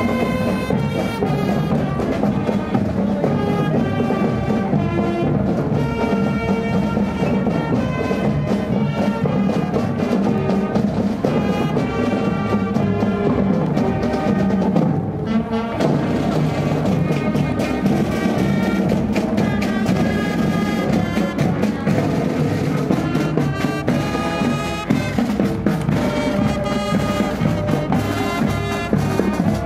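Marching band playing a tune: brass (trumpets, trombones, saxophones) over snare, tenor and bass drums.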